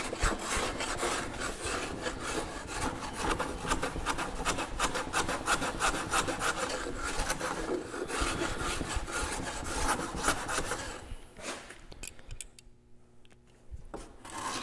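Rapid, repeated scraping strokes of a hand tool on the sawn end grain of a white pine board, truing the end square to the line. The strokes stop about eleven seconds in and start again near the end.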